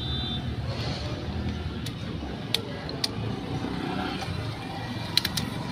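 Steady low engine rumble running in the background, with several short sharp clicks and clinks as seal rings are worked onto the steel piston of a hydraulic cylinder.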